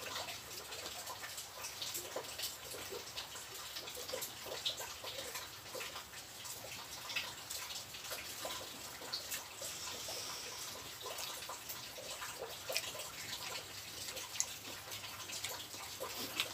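Wet chewing and lip-smacking, with many small irregular sticky clicks from fingers working rice, sambal and fried catfish.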